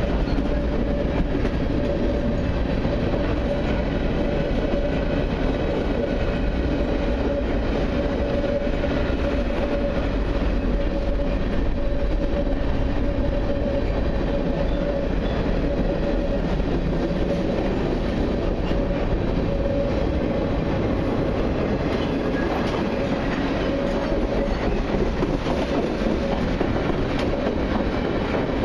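Freight train's covered hopper cars rolling past: a steady rumble and clatter of wheels on rail, with one steady ringing tone held above it for most of the time.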